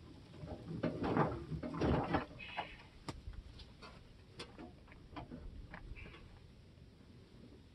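Handling noise from fitting a snow cab's metal front tubes into their supports on a garden tractor: rustling and light knocks, loudest about one to two seconds in, then only scattered sharp clicks and ticks.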